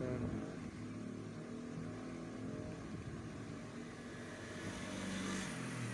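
A motor vehicle engine running steadily, growing louder about five seconds in and easing off near the end.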